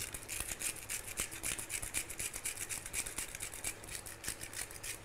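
Hand-twisted pepper mill grinding peppercorns: a steady run of quick, gritty clicks, many a second, that stops at the end.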